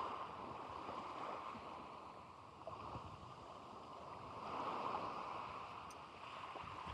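Small waves washing on the beach: a steady wash of surf that swells about halfway through.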